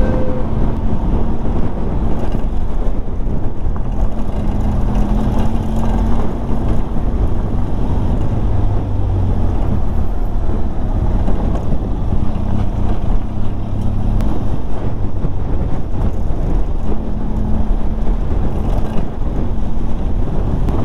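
Benelli TRK 502X's parallel-twin engine running steadily as the motorcycle rides along, with heavy wind noise on the on-bike microphone.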